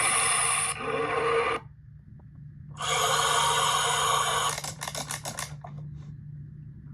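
Electronic sound effects played from a Power Rangers jungle Cube Zord toy's small speaker: one burst that cuts off about one and a half seconds in, then a second burst about three seconds in that ends in a quick run of pulses.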